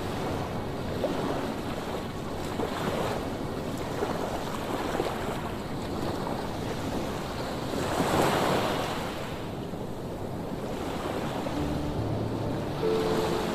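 Sea waves washing onto a stony shore, a continuous surf hiss with one bigger wave breaking about eight seconds in. Soft background music with held notes comes in near the end.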